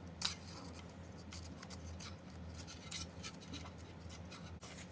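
Small model parts being handled and fitted by hand: a scattering of light clicks and scratches over a low steady hum.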